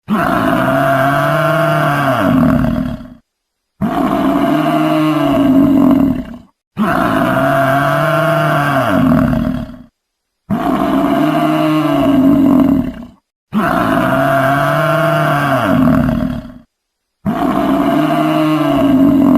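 Cow mooing: six long moos of about three seconds each, separated by short silences. Each moo rises and then falls in pitch, and the moos look nearly identical, like the same call repeated.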